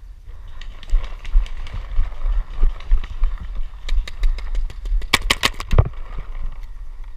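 Paintball markers firing: scattered sharp pops, then a fast string of loud shots about five seconds in, over a low rumble.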